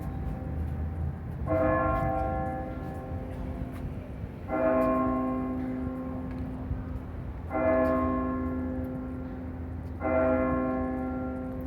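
A church bell tolling the hour: one bell struck four times about three seconds apart, each stroke ringing on and fading before the next.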